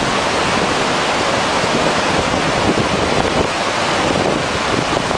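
Steady rush of the Zambezi River's water pouring over the lip of Victoria Falls, with wind buffeting the microphone.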